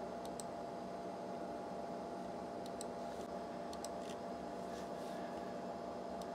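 Steady hum and hiss of a computer's cooling fan, with a few faint mouse clicks spread through it.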